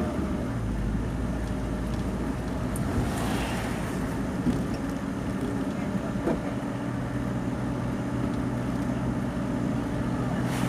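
Road vehicle on the move: steady engine hum with continuous road noise. A brief swell of noise comes about three seconds in.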